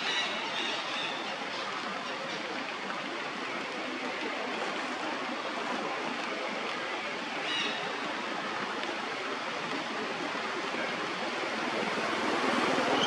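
Steady rushing background noise, with a short high chirp about seven and a half seconds in; the noise grows louder near the end.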